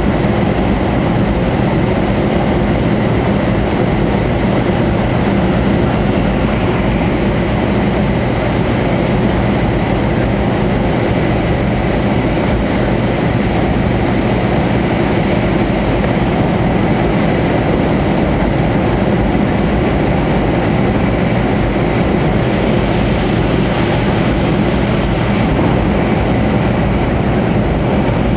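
Cabin noise of a 500 series Shinkansen running steadily: an even rumble and rush, with a faint steady high whine above it.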